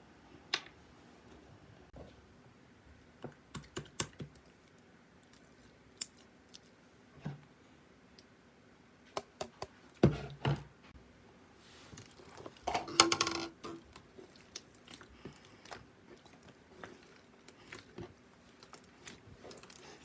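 Slime being played with by hand, making scattered sharp clicks and pops, with a quick run of them about four seconds in, a louder pair about ten seconds in, and a dense crackling cluster about thirteen seconds in.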